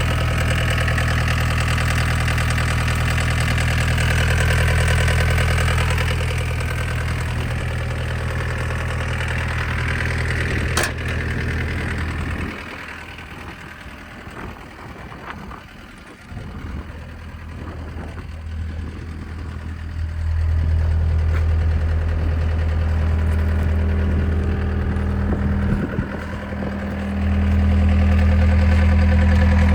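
The 66 hp Tier 4 diesel engine of a John Deere 320E skid steer loader running at a steady idle. The engine sound drops away sharply about twelve seconds in, comes back about eight seconds later, and is louder again near the end.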